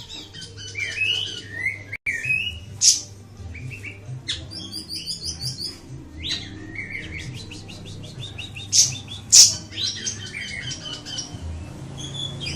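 Siri-siri songbird singing a fast, varied run of chirps and trills. A few loud sharp notes come about three seconds in and twice around nine seconds.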